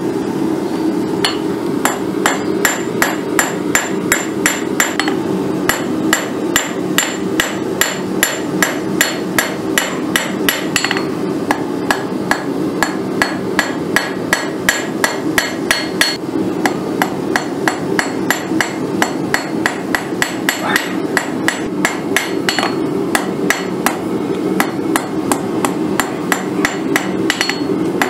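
Hand hammer striking hot quarter-inch round steel on the face of a Cavalry anvil, a steady run of about three blows a second with a bright ring, drawing out tapers on the ends of fork tines. A steady low rushing noise runs underneath.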